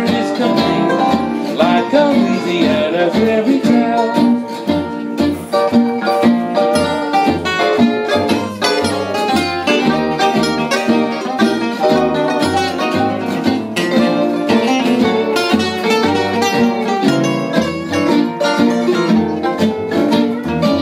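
Acoustic string band playing an instrumental passage: several acoustic guitars strumming chords and picking a melody over steady plucked double bass notes.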